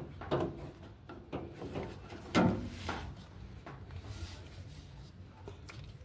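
Hard plastic knocks and clicks as a washing machine's drain pump assembly and its wiring connector are handled, the loudest knock about two and a half seconds in.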